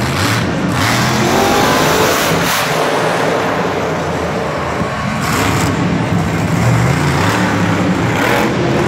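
Monster truck's supercharged big-block V8 running loud, revving up and down as the truck drives.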